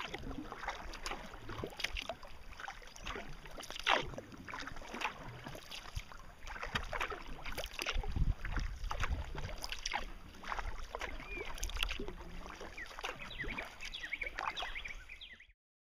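Kayak paddles dipping and splashing in river water in irregular strokes over a low rumble; the sound cuts off shortly before the end.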